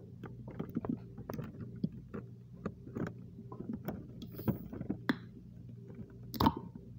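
Metal spoon and hands scraping and tapping on a plastic food container and plates: many small clicks and scrapes over a steady low hum, with a louder scrape about six and a half seconds in as the spoon digs into the container.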